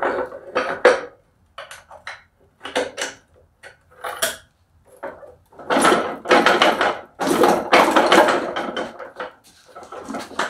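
Metal clicks and clatter of a manual truck transmission's stick shift being fitted into its shift tower and worked. Separate knocks come first, then two longer stretches of rattling about six and seven and a half seconds in.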